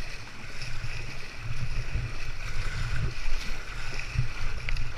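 Sea water splashing and lapping around a kayak as it is paddled, over a low, uneven rumble, with a few small sharp splashes.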